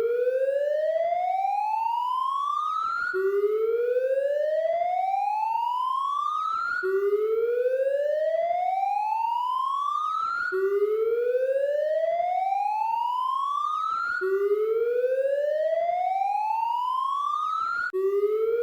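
Police siren in a slow wail: each sweep climbs steadily in pitch for nearly four seconds, then drops back abruptly and starts climbing again, over and over.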